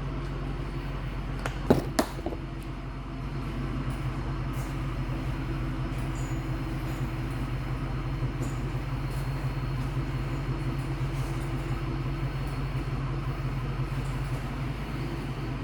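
Steady low machine hum, with two sharp knocks close together about two seconds in.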